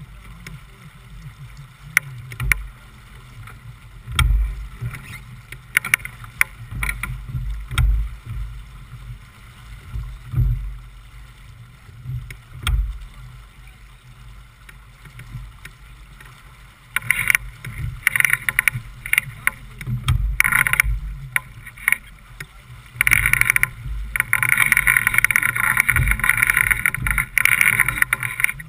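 J/24 sailboat's hull working through choppy water: low thumps of waves and wind gusts about every two seconds. About two-thirds of the way in, a loud rushing hiss of water and wind takes over and holds.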